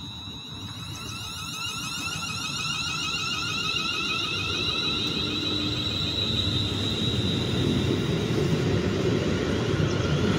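Class 350 Desiro electric multiple unit pulling away from the platform. Its traction motors whine in several tones that climb together in pitch, over a growing rumble of wheels as it gathers speed. A steady high whistle at the start fades out.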